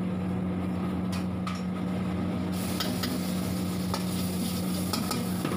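A steel ladle stirring and clinking against a steel wok, with gravy frying in hot oil and sizzling from about halfway through. A steady low hum runs underneath.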